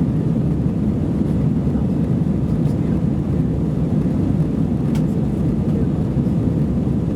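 Airbus A320-214 airliner cabin noise heard from a rear seat: a steady low drone of its CFM56 jet engines and airflow.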